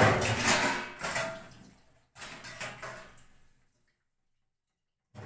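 Tap water splashing into a metal kadai being rinsed at a kitchen sink, loudest in the first second and then fading. A few weaker clinks of dishes follow.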